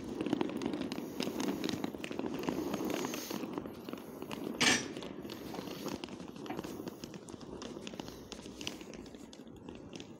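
Footsteps on paving stones over the steady low noise of a VL82M electric locomotive standing at the platform. A short burst of hiss comes about halfway through.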